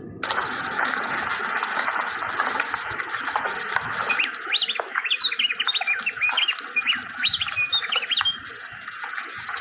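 Small birds chirping in quick, rapid runs over a steady hiss, with the chirping thickest in the middle of the stretch.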